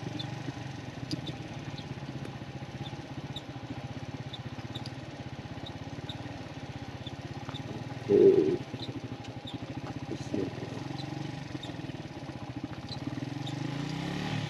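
Suzuki GS150 motorcycle's single-cylinder engine running steadily as the bike is ridden along an off-road track. A brief louder sound comes about eight seconds in.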